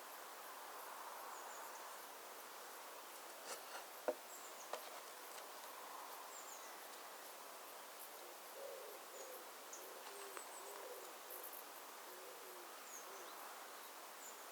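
Outdoor ambience with birds calling: a series of low, hooting calls from about halfway through, with short high chirps scattered throughout. A few sharp knocks come around four seconds in.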